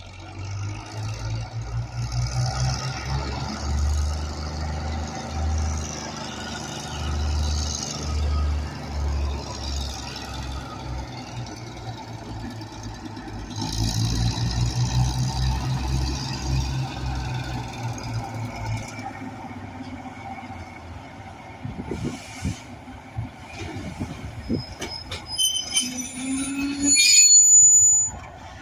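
Two GE diesel locomotives pass close by one after the other, their engines throbbing low and loud. After them, the cars' wheels click over the rail joints. Near the end comes a short, loud, high-pitched squeal.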